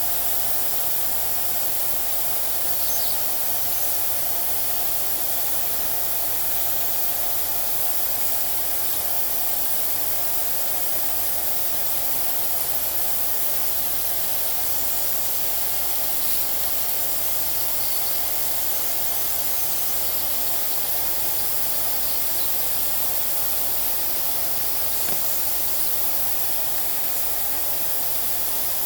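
Small vacuum cleaner running steadily, a constant rushing with a steady motor whine, sucking dust out of the inside of a sewing machine.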